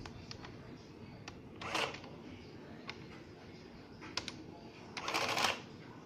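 Citizen CX-123 printing calculator in use: single key clicks as numbers are entered, and its print mechanism running in short bursts, briefly just under two seconds in and for about half a second around five seconds in.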